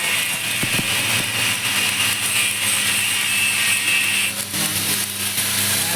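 Paddy threshing machine running: a steady mechanical hum under a loud hiss, with the higher hiss dropping away about four seconds in.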